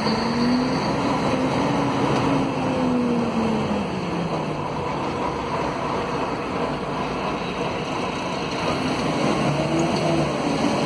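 Mercedes-Benz OM457LA straight-six turbodiesel of an articulated Mercedes-Benz O500 UA city bus pulling hard at full throttle, heard from inside the passenger cabin. Its pitch rises over the first couple of seconds, falls away by about four seconds in, and climbs again near the end.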